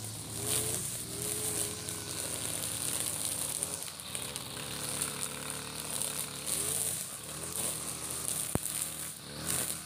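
Husqvarna 542RBS 42cc two-stroke backpack brush cutter running at working speed while its 2.4 mm trimmer line cuts short grass. The engine note keeps dipping and recovering as the line bites into the grass, over a steady whirring hiss from the spinning line.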